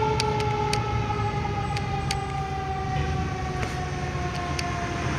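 Fire truck siren giving one long, slowly falling wail as it winds down, over the low rumble of the truck and traffic.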